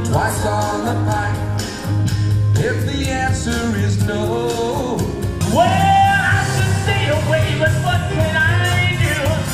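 A man singing into a microphone over a band backing track with a steady bass and beat, holding one long note from about halfway through.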